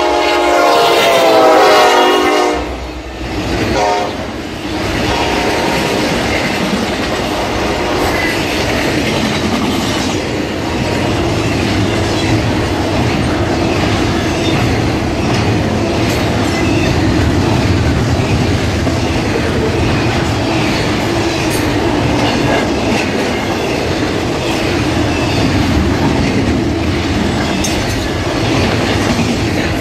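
Norfolk Southern SD70ACu locomotive's horn sounding a loud blast that ends about two seconds in, with a short toot a second later. The steady noise of a long double-stack intermodal train's wheels rolling on the rails follows.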